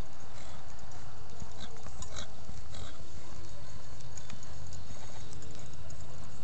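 Hoofbeats of a paint horse loping on arena sand, over a steady low rumble.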